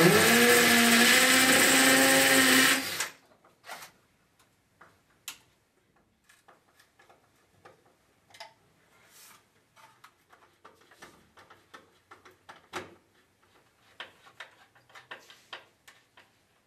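Cordless DeWalt drill boring into the wall for about three seconds, its motor pitch rising as it spins up, then cutting off. After that, only faint scattered clicks and taps of a screwdriver and small hand work on an electrical isolator box and meter.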